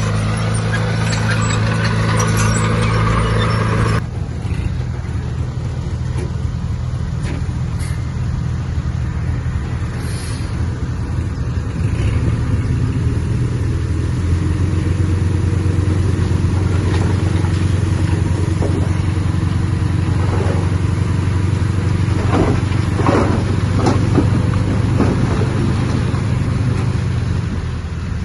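Heavy diesel earthmoving machinery running steadily. Its sound changes abruptly about four seconds in, and a few short, sharp sounds come between about 22 and 24 seconds in.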